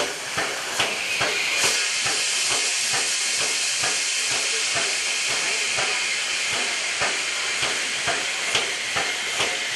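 Steam locomotive letting off steam in a loud, steady hiss that sets in about a second in and grows stronger shortly after, with scattered sharp clicks and knocks throughout.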